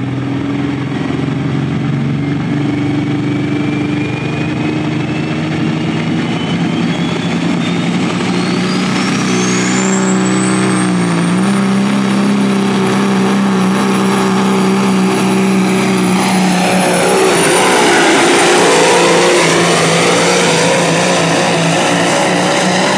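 Pro stock semi's diesel engine running hard under full load while pulling a weight-transfer sled. A high whistle climbs steadily in pitch over the first ten seconds or so and then holds, and the engine note dips briefly about eleven seconds in.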